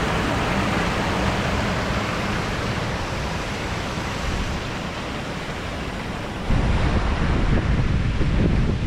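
Rushing river water, a steady hiss. About six and a half seconds in, wind starts buffeting the microphone with a low rumble.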